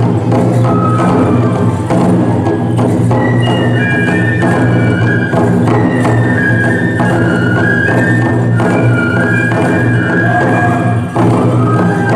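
Toramai (tiger dance) festival music: bamboo transverse flutes play a stepping melody over steady beats on taiko barrel drums.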